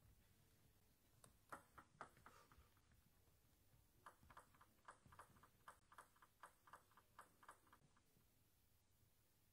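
A table tennis ball bouncing as sharp clicks. A few irregular bounces come early, then a steady run of about four or five bounces a second lasts nearly four seconds before stopping.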